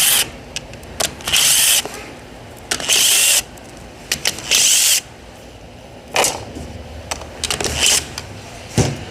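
Cordless power tool, most likely an electric ratchet, run in short bursts to loosen bolts on a CVT transmission: three strong runs of under a second each in the first five seconds, then fainter, shorter ones.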